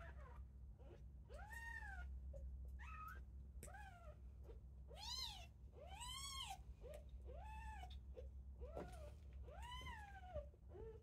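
Very young kittens mewing: a run of short, high-pitched mews, each rising and falling in pitch, about one a second, over a low steady hum.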